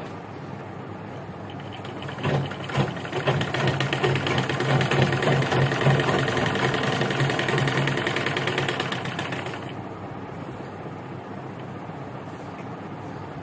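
Domestic sewing machine running a seam through blouse fabric: a fast, even clatter of needle strokes over a steady hum. It starts about two seconds in and stops a little past two-thirds of the way through.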